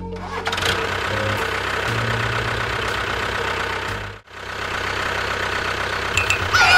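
Tractor engine running steadily, cut off for a moment about four seconds in and then resuming.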